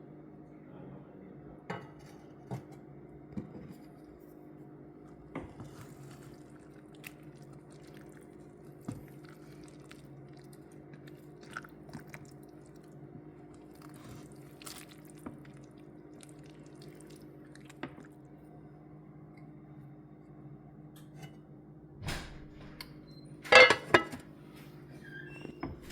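Kitchen clatter: dishes, pots and utensils knocking and clinking now and then over a steady low hum. The loudest burst of clatter comes near the end.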